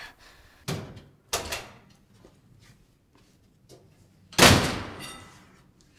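A door slamming about four seconds in, loud and ringing out briefly, after two shorter bangs near the start.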